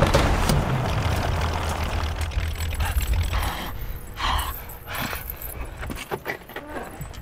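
Action-film sound effects: a loud low rumble with hiss that fades over the first three seconds or so, then scattered metallic clinks and knocks and a short breathy vocal sound about four seconds in.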